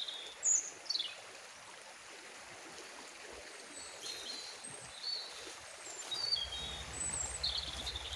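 Fast-flowing river rushing steadily, with short high bird chirps scattered through it, the loudest near the start. A low pulsing hum comes in about six seconds in.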